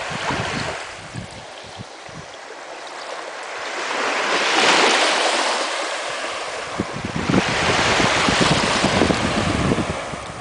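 Small waves washing in the shallows, swelling twice. Wind buffets the microphone with low rumbles during the second swell.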